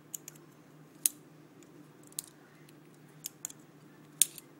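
Sharp metal clicks of a butterfly knife (balisong) being handled, its handles and blade tapping together, about seven scattered clicks with the loudest about a second in and near the end.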